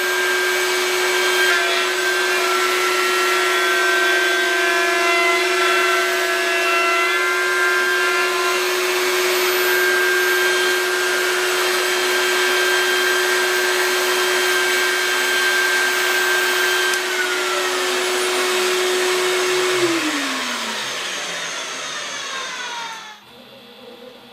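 A CNC router spindle running at speed together with a vacuum cleaner's hiss. Near the end both motors wind down with falling pitch, and the noise cuts off suddenly about 23 seconds in as the machine is switched off.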